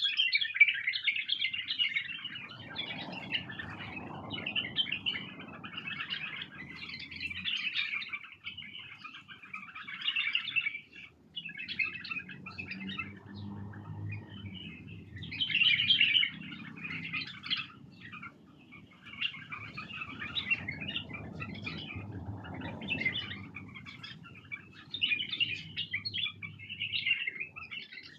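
White-eared bulbuls calling in quick, chattering chirps, near continuous with short breaks. A low rumble comes and goes underneath.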